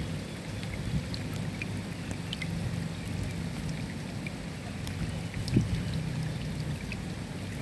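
Steady rain falling, with many separate drops clicking sharply against a surface over a low, steady rumble. A single louder thump comes about five and a half seconds in.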